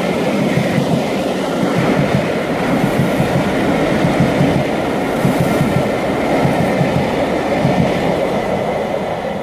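Passenger coaches of a steam-hauled train running past at speed close by: a loud, steady rumble of wheels on rails with quick clattering over the rail joints.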